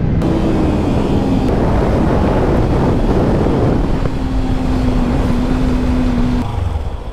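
Sport motorcycle being ridden at road speed, its engine note held fairly steady under heavy wind rush on the microphone, easing off about six and a half seconds in.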